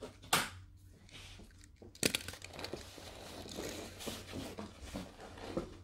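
Rustling and crackling close against the microphone, with a sharp click just after the start and a denser run of scraping and small clicks from about two seconds in.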